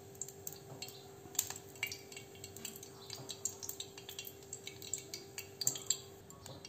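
A steady low hum with scattered light clicks and clinks, typical of a kitchen while cooking oil heats in a pan on a gas burner.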